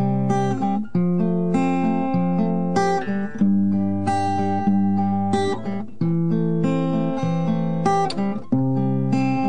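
Acoustic guitar playing chords in an instrumental passage of a song, a new chord struck every second or so, with no singing.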